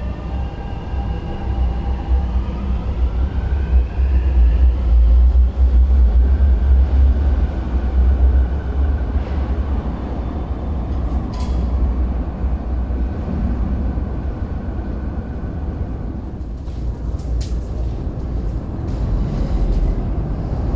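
South Island Line S-Train accelerating out of the station: several whining tones of its electric traction motors rise in pitch over a heavy low rumble, which is loudest a few seconds in and then eases off as the train runs into the tunnel. A few light clicks come near the end.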